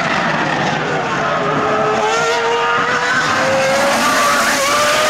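Formula One car's V10 engine running at high revs, its pitch climbing steadily as the car accelerates.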